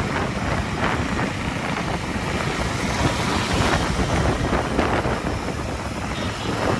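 Wind rushing over an iPhone's built-in microphone on a moving motorcycle, a steady loud noise with the bike's engine and road noise underneath.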